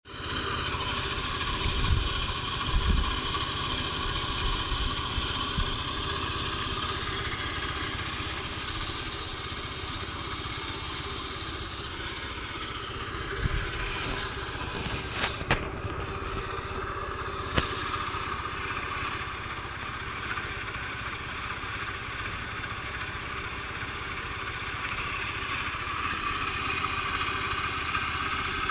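Honda Dio four-stroke scooter engine running steadily at idle, with a slight abnormal noise that the owner points out. A few sharp clicks come about midway through.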